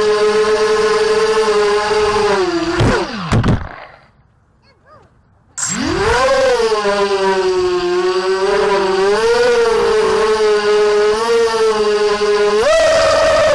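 ZMR250 quadcopter's brushless motors and propellers whining, the pitch wavering with throttle. About three seconds in the whine falls sharply and cuts out almost to silence for about a second and a half as the throttle is dropped, then spools back up, with another short rise in pitch near the end.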